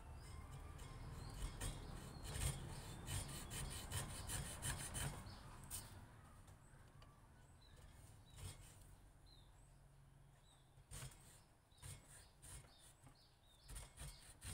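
Small hand chisel scraping grooves into a wooden knife handle: rapid short strokes for about six seconds, then a few scattered scrapes and taps. Birds chirp faintly.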